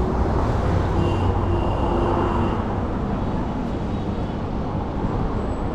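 Busy street traffic: the rumble of motor vehicle engines and tyre noise, with a faint high whine about a second in.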